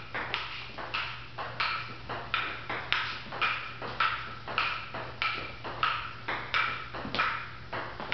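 Table tennis ball in a continuous rally, struck by paddles and bouncing on the table in an even rhythm of about three sharp clicks a second, each with a short hollow ping.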